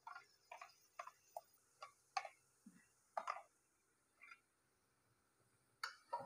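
Sparse light clicks and taps of a utensil scraping spice paste out of a plastic container onto a wok, then a spatula knocking against the wok as stirring begins near the end.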